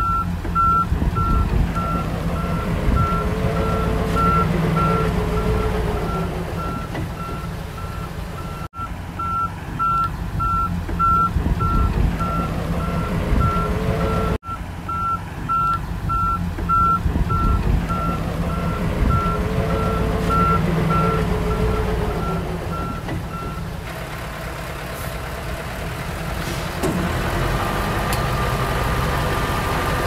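Diesel engine of a Komatsu D31 bulldozer running, with a reversing alarm beeping in a steady repeating pattern as the machine backs up. The beeping stops about three quarters of the way through, and the engine keeps running.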